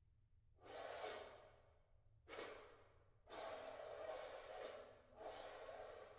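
Four soft, airy swells of unpitched noise from a contemporary piece for solo percussion and ensemble, each starting suddenly and fading away over about a second.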